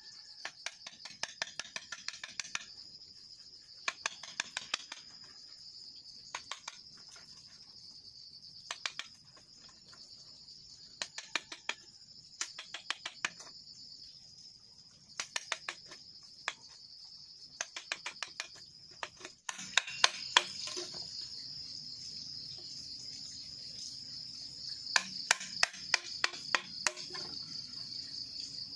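Hammer tapping a chisel into green bamboo poles to cut holes, in runs of quick, light strikes with short pauses between. A steady high insect drone runs underneath.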